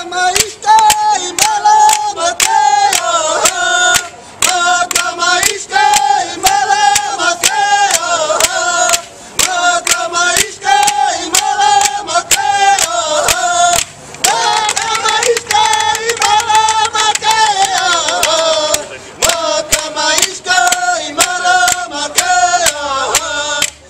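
Group of men singing a traditional Native song in unison, keeping time on wooden clapper sticks with a steady clacking beat of about two to three strikes a second.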